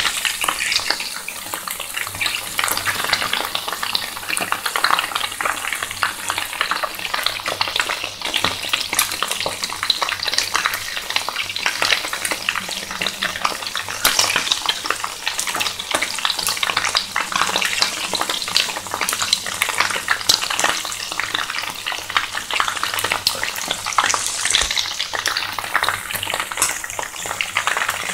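Chicken drumsticks and thighs frying in hot oil in a pan: a steady sizzle with dense, constant crackling pops.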